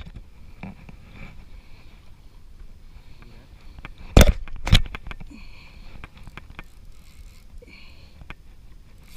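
Two loud knocks about half a second apart, a little over four seconds in, over a low background of faint scattered ticks. The knocks fit a gloved hand bumping the chest-mounted camera.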